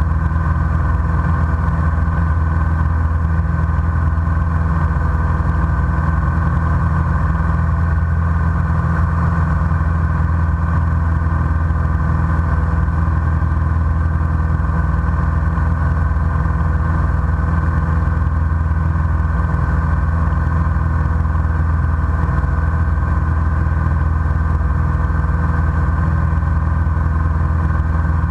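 Single-engine light aircraft's piston engine and propeller droning steadily in cruise, heard from inside the cockpit; the pitch and level hold constant.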